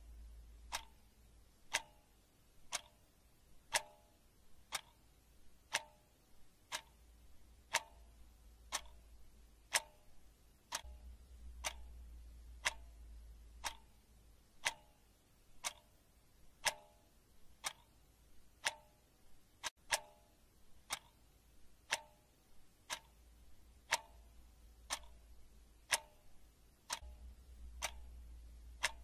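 Wall clock ticking once a second, each tick a sharp click with a short ringing tone, over a low hum.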